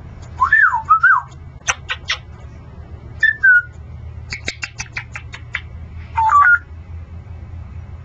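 Congo African grey parrot whistling short up-and-down notes, mixed with sharp clicks, including a quick run of about eight clicks in the middle.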